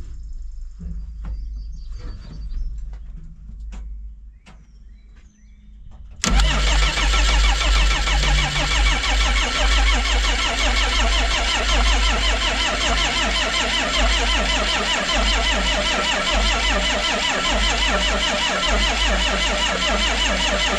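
Starter cranking a 12-valve Cummins 5.9 L inline-six diesel, freshly rebuilt with a new head gasket. It starts suddenly about six seconds in and turns the engine over steadily without it catching.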